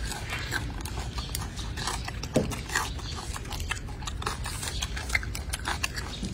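Infant golden snub-nosed monkey mouthing and gnawing on a human hand, making small wet clicking mouth sounds, with one short low sound about two and a half seconds in.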